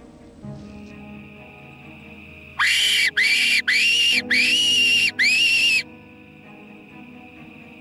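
Apex fox whistle, blown by mouth in five short calls about three seconds long in all, starting about two and a half seconds in; each call rises quickly to a held high note and falls off at the end, the fourth held longest. It is a fox lure imitating the distress cry of a prey animal.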